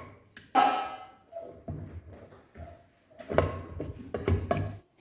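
Cast metal clutch cover of a Hero Splendor Plus engine being handled and pressed onto the crankcase: a metallic clank with brief ringing about half a second in, then irregular knocking and rubbing of metal on metal as the cover is worked into place.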